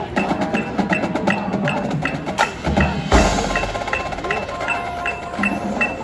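Marching band percussion during a field show: a steady tick about two and a half times a second, with mallet-percussion notes from the front ensemble, and one loud crash about three seconds in that rings on.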